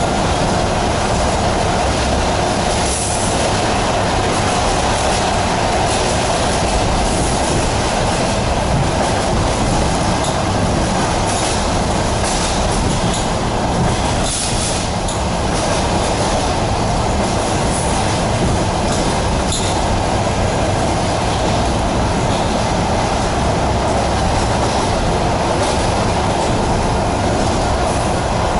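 ED4MK electric multiple unit running between stations, heard from inside the passenger car: steady wheel-on-rail running noise with a few faint clicks.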